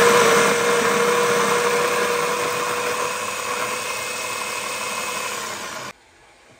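Baratza Sette 30 electric burr coffee grinder grinding beans at a coarse setting: a loud, steady motor whine with a held tone, easing off a little and then cutting off suddenly about six seconds in as the grind finishes.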